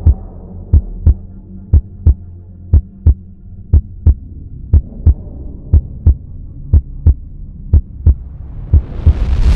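Heartbeat sound effect: a double thump about once a second over a steady low drone. A rising whoosh builds in the last second and then cuts off suddenly.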